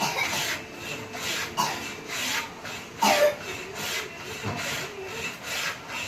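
Back-and-forth rasping strokes of a hand tool finishing sunmica laminate on wood, about one and a half strokes a second, with one louder scrape about three seconds in.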